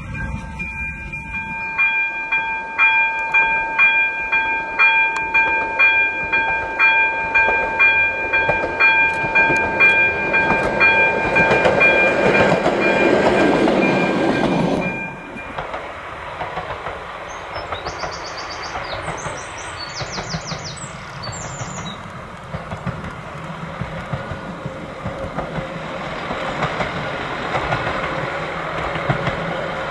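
Level-crossing warning signal ringing about twice a second while a narrow-gauge diesel railcar approaches and passes, its engine and wheels building to a rumble. About halfway through the ringing stops, and the railcar's engine and wheels run on at a steadier, lower level.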